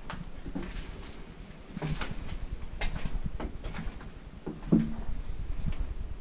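Irregular footsteps and small crunches and knocks of debris underfoot, with a louder knock about five seconds in, over a steady low rumble of wind on the microphone.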